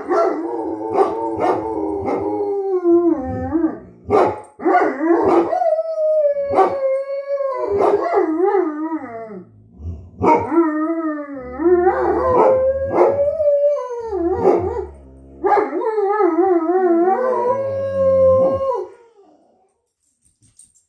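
Great Dane and Poodle howling and barking at something outside: long wavering howls broken by repeated sharp barks, dying away near the end.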